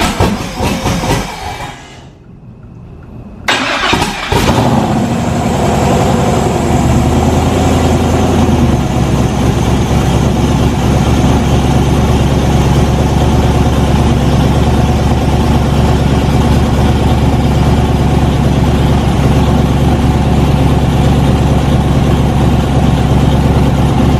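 Twin-turbo LS V8 in a rat rod being cranked and firing up about three and a half seconds in, revving briefly and then settling into a steady idle. This is its first start after lifter work.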